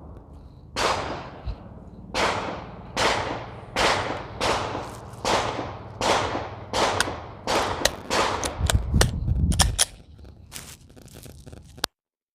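Glock 43X MOS 9mm pistol firing a steady string of about ten shots, one every half second to a second, each with a ringing tail. Several sharper, fainter cracks follow near the end.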